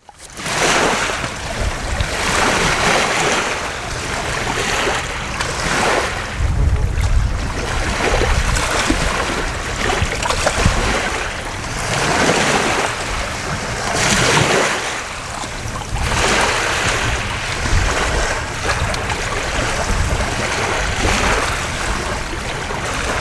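Small waves lapping, swelling every second or two, with wind rumbling on the microphone.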